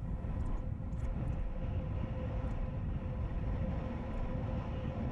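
Wind buffeting the camera microphone on a windsurf foil rig moving at speed, a heavy low rumble, with a steady faint hum running through it.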